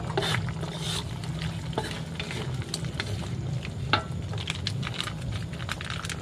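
Spoon stirring sweet and sour sauce in a cooking pan, with irregular light clicks and scrapes of the utensil against the pan, over a steady low hum.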